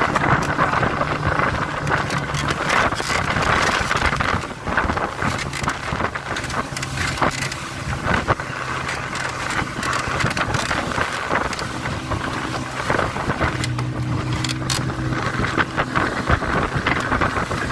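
Yamaha 40 hp outboard motor running at a steady speed, with the rush of water and wind and occasional splashes against the hull.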